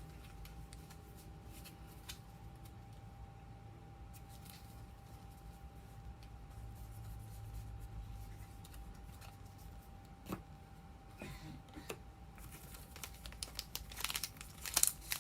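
Quiet handling of trading cards with a few light clicks over a faint steady hum, then crinkling and tearing of a card-pack wrapper that grows louder in the last few seconds.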